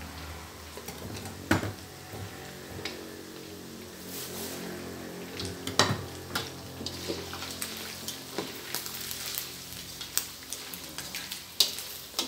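Sweet dried fish (pla wan) sizzling in hot oil in a steel wok, with a few sharp clicks and pops now and then. Near the end a metal spatula stirs and scrapes in the wok.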